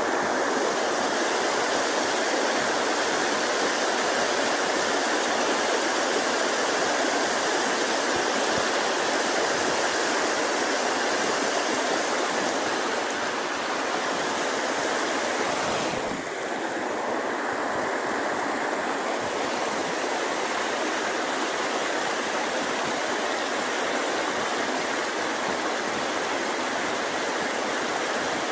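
Mountain stream rushing over rocks: a steady noise of flowing water, with a slight dip in level about halfway through.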